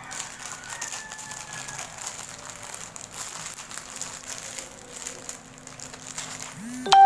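Faint crinkling and rustling of plastic as a diamond painting canvas and its packaging are handled. Near the end, a sudden loud ringing tone starts with a low swooping sound under it.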